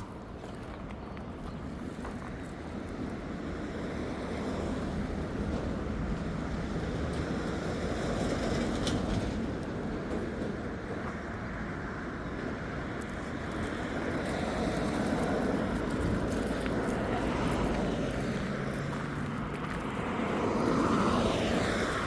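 Road traffic: vehicles going past, their noise swelling and fading several times. The loudest pass comes near the end, its pitch falling as it goes by.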